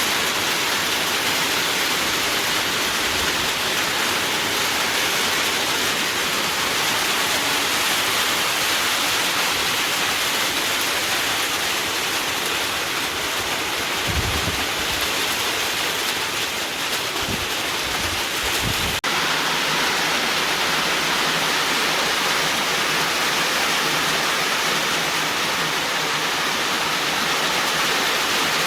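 Steady heavy rain, a loud even hiss, with a few low thumps in the middle.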